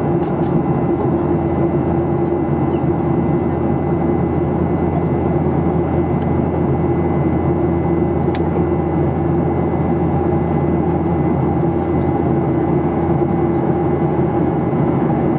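Steady cabin drone of a Boeing 737-800 in flight, heard from a window seat over the wing: the hum of its CFM56-7B turbofan engines and the rush of airflow, with a thin steady whine. A single faint click comes about eight seconds in.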